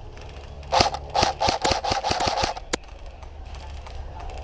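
Airsoft electric gun firing a rapid string of about ten shots, roughly six a second, then a single shot a moment later.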